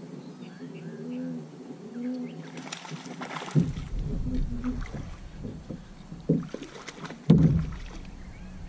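A hooked largemouth bass splashing and thrashing at the surface beside a plastic paddle boat as it is reeled in. From about three and a half seconds in there are heavy knocks and bumps against the hull, the loudest near the end.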